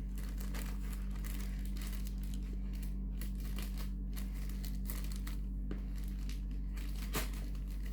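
Crinkling and rustling of a mailed package's wrapping as it is handled and worked open, with faint crackles throughout, over a steady low hum.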